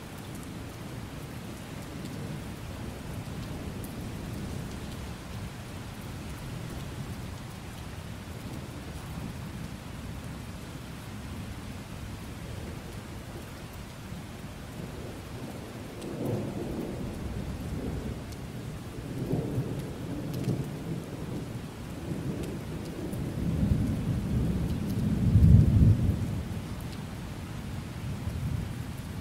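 Steady rain with thunder: low rumbles begin about halfway through and build to a loud, deep roll near the end.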